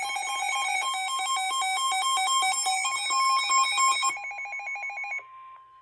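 A weather alert radio's electronic alarm sounding for an incoming warning: a fast beeping that switches rapidly between pitches. It stops about four to five seconds in, leaving a single steady tone that carries on more quietly.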